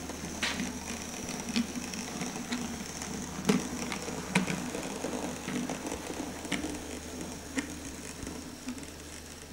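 OO gauge Hornby J94 model steam locomotive crawling slowly with coal wagons under a TCS M1 DCC decoder: a small motor-and-gear whirr with scattered irregular clicks, the loudest about three and a half and four and a half seconds in, growing fainter near the end.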